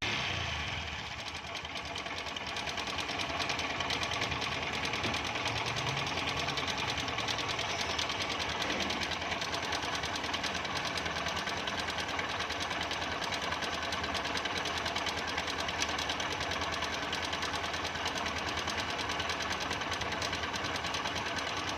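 Motorcycle engine running steadily with a fast, even mechanical clatter, which the mechanic identifies as timing chain noise.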